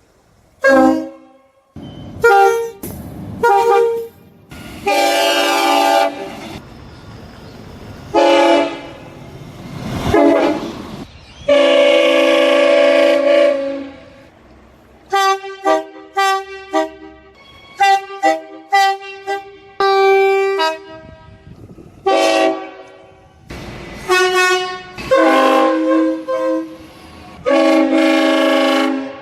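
Train horns sounding a string of blasts, some short quick toots and some long held blasts, each horn sounding several tones at once as a chord. The pitch and length change abruptly from one blast to the next.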